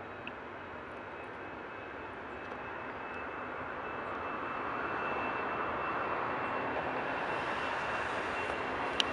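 Boeing 747-400F freighter's four turbofan engines at takeoff thrust during the takeoff roll: a rushing jet noise with a thin steady whine running through it, growing steadily louder as the aircraft accelerates toward the camera. A single sharp click near the end.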